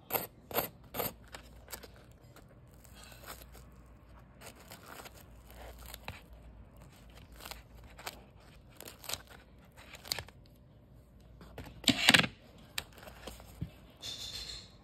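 Kitchen scissors cutting through a crisp deep-fried bread pakora: a quick run of crunchy snips at the start, then scattered quieter crackles of the batter crust, and a louder crunch about twelve seconds in.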